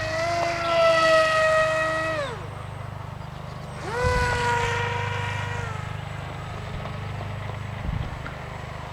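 Electric motor and propeller of an AXN Floater Jet RC plane whining as the throttle is punched twice: each time the pitch rises, holds for about two seconds, then falls as the throttle is cut, the second burst starting about four seconds in.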